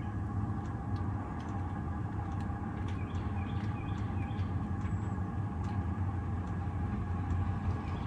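Chinese diesel air heater running: a steady low hum with the whir of its fan and faint ticking.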